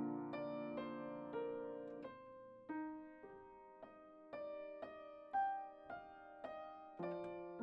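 Solo piano playing slow, sparse notes and soft chords, each struck note left to ring and fade before the next. One note about five seconds in stands out as louder.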